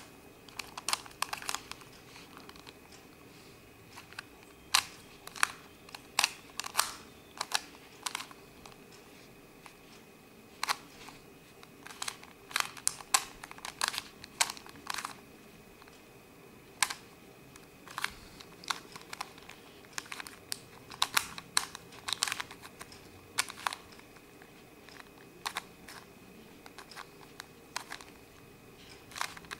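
Z Cube 2x2x3 cuboid puzzle being turned during a solve: plastic layers clicking and clacking in irregular bursts of quick turns with short pauses between. The puzzle is a bit tight, with scratchy top-layer turns.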